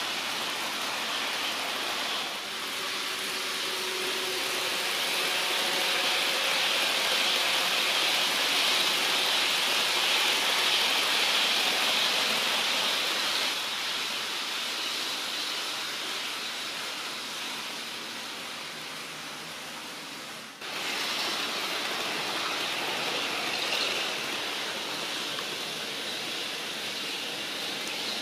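HO scale model trains running on the layout track: a steady hiss and rumble of small wheels on rails and the locomotive motors. It swells as a train passes close, then breaks off and picks up again abruptly about two-thirds of the way through.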